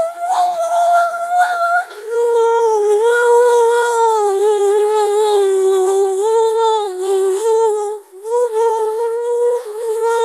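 A synthetic 15.ai text-to-speech voice modelled on Rainbow Dash, droning one long wordless hum-like vowel as it tries to read an aberrant string of W's. The tone is high and steady for about two seconds, then drops lower and wavers up and down, with a short break near the eight-second mark.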